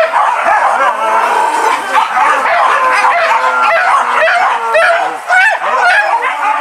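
A pack of hunting dogs yelping and baying without a break, many high overlapping yips and whines at once.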